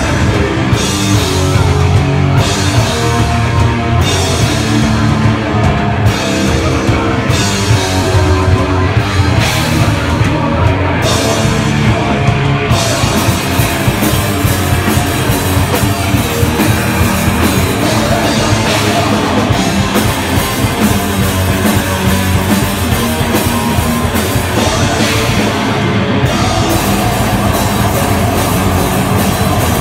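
A heavy rock band playing live and loud: drum kit, bass and guitar together. For the first dozen seconds the playing stops and starts in short, choppy hits about once a second, then runs on without breaks.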